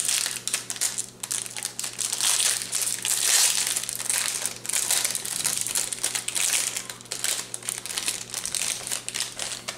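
Clear plastic packaging bag crinkling continuously as it is handled and opened to take out a fishing lure.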